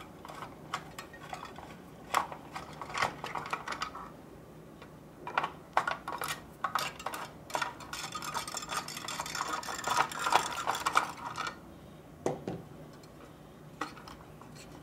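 Screwdriver undoing screws inside a Dell Optiplex 745's sheet-metal case, with scattered clicks at first, then a dense run of clicking and scraping, and a single knock near the end.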